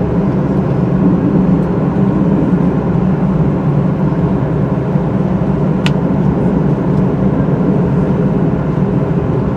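Steady cabin noise inside a Boeing 737-800 taxiing, its CFM56-7B engines running at idle thrust under the air-conditioning hum. A single short click about six seconds in.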